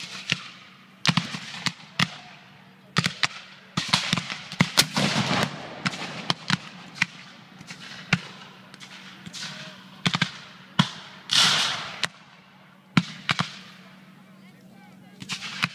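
Black-powder muskets of a reenactors' battle line firing many sharp shots at irregular intervals, with a cannon firing among them.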